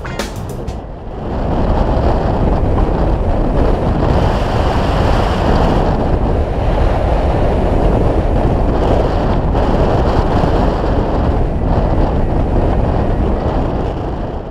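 Loud, steady rush of wind on the microphone of a camera mounted on a hang glider in flight, rising about a second in.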